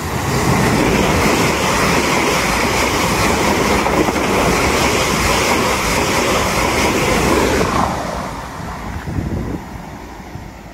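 Two coupled Class 444 electric multiple units, ten coaches, passing through the station at speed without stopping: a loud rush of wheels on rail and air that comes in as the front arrives, holds for about eight seconds, then fades as the train draws away.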